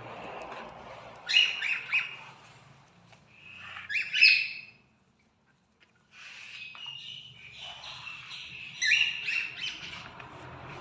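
Pet cockatiels chirping in short bursts of calls, three loud clusters of chirps over softer background chatter, with a brief silent gap in the middle.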